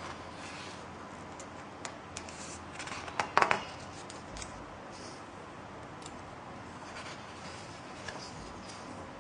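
Pages of a large art book being turned by hand: soft paper rustling and small crisp ticks, with a louder crackling snap of paper about three and a half seconds in.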